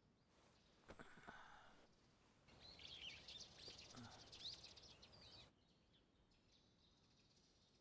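Faint birds chirping, a few short chirps at a time, over quiet outdoor ambience, with a soft knock about a second in.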